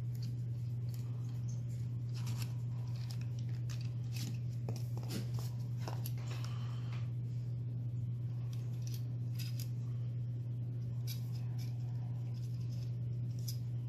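Box packaging and a plastic-wrapped gimbal being handled and pulled out: scattered clicks, rustles and scrapes, busiest in the first half and again near the end, over a steady low hum.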